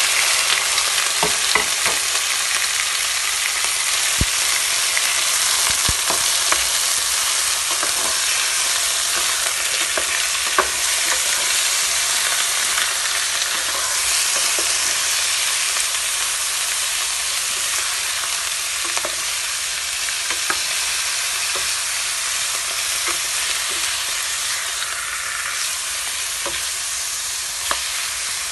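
Raw chicken pieces sizzling loudly in hot oil with sautéed garlic and onion in a nonstick pan, easing slightly over time. A spatula scrapes and taps against the pan now and then as the chicken is stirred.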